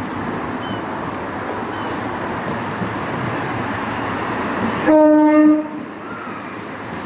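A train running past with a steady noise, then about five seconds in one short horn blast on a single note, the loudest sound.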